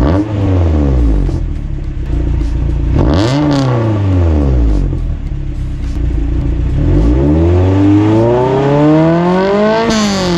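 Toyota AE86's 4A-GE twin-cam four-cylinder is revved while parked, heard through a SACLAM exhaust with a high-pitched note. There is a quick blip that falls off at once, a sharp blip about three seconds in, then a longer climb from about seven seconds in that peaks near the end and drops back.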